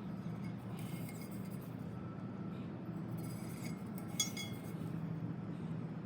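Light metallic clinks and taps from handling the perforated stainless steel utensil caddy and tools, with one sharper ringing clink about four seconds in, over a steady low hum.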